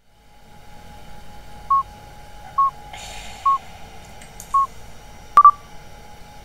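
Four short electronic beeps, evenly spaced about a second apart, then a louder beep with a sharp click, over a faint steady hum. They are interface-style sound effects of the kind that mark a menu highlight moving.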